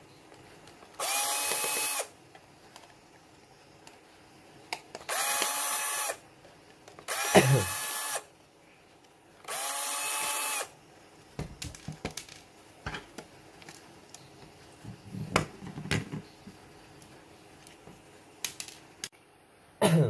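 Small power screwdriver running in four short bursts of about a second each, whining at a steady pitch, as it backs out the screws of a plastic humidifier base. Light clicks and knocks from handling the parts follow.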